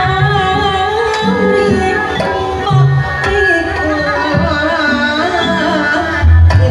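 Sundanese jaipongan music: a female singer (sinden) sings a wavering, ornamented melody over hand drums and a gamelan ensemble, with deep drum strokes recurring through the phrase.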